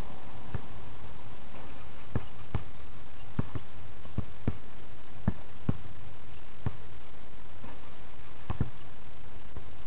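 A basketball bouncing and striking, about fifteen sharp, irregularly spaced thumps with a quick double knock near the end, over a steady background hiss.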